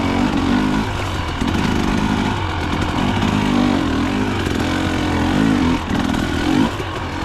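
Two-stroke KTM hard enduro dirt bike engine running hard, its pitch rising and falling repeatedly as the throttle is worked.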